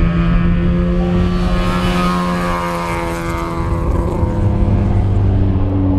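Racing car engines at speed: one holds a steady note while another passes, its pitch falling around the middle. A lower-pitched engine comes in strongly in the last couple of seconds.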